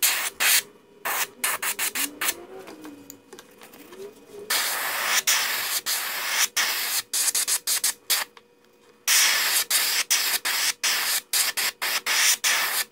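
Gravity-feed airbrush spraying paint: a hiss of air and paint that is cut by many brief stops of the trigger. It is mostly off for the first few seconds, runs steadily after that, and pauses for under a second after the middle.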